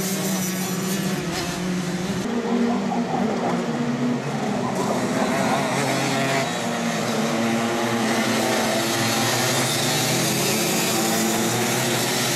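Several two-stroke racing kart engines running at high revs as the karts race past, their pitch rising and falling with the revs and overlapping.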